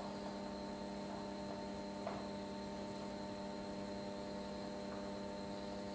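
Steady electrical mains hum, a constant buzzing tone with several overtones, under a low hiss. One faint tap of a marker on the whiteboard comes about two seconds in.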